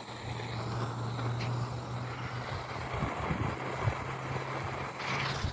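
A jet-flame lighter clicking and its flame hissing as it lights a flash banger's fuse, over a steady low drone; the hiss grows brighter near the end.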